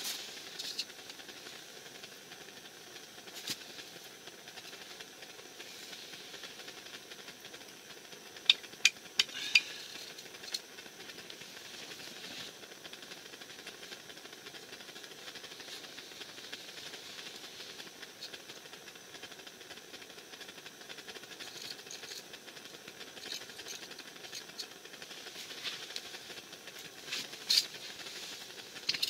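Steady hiss of a gas burner running inside an ice-fishing tent. A quick run of four sharp clicks comes about nine seconds in, and another sharp click or two near the end.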